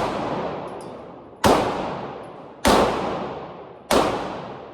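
Three gunshots fired one at a time, about a second and a quarter apart, each ringing out in a long echoing tail. The last shot before them is still dying away at the start.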